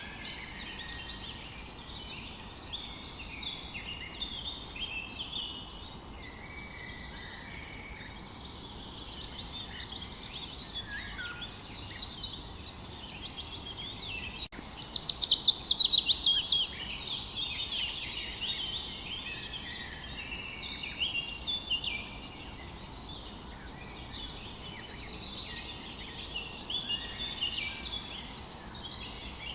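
Several songbirds chirping and singing in a morning chorus over a faint steady background hiss. About halfway through, one bird gives a louder, rapid trill of quickly repeated notes lasting about two seconds.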